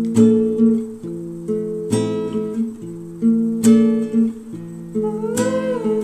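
Background music of strummed acoustic guitar chords, a fresh strum about every second and a half to two seconds, with a wavering melody line coming in about five seconds in.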